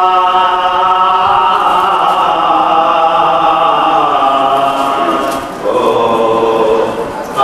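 Men chanting a marsiya, an Urdu elegy, with voices alone and no instruments. A long melodic phrase is held and drawn out, breaks off briefly about five and a half seconds in, and a new phrase begins.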